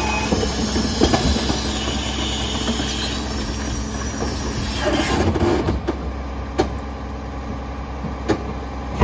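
Rear-loading garbage truck's packer running its cycle: a high hydraulic whine over the steady hum of the diesel engine as the blade sweeps trash out of the hopper, with a few sharp metal clunks in the second half.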